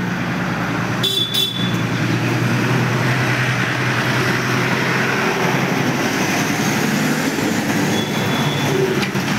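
School bus engine running close by as the bus moves past, a steady heavy hum with road noise. A brief high-pitched tone cuts in about a second in, and a fainter one comes near the end.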